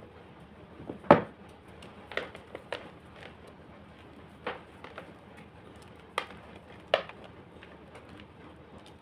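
Homemade gym chalk crunching as it is crushed: about six separate sharp crunches, the loudest about a second in, the rest spread a second or so apart.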